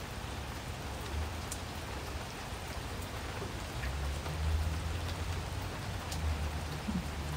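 A stir stick mixing two-part epoxy resin in a small plastic cup, giving a few faint scrapes and taps over a steady hiss. A low hum grows louder about four seconds in.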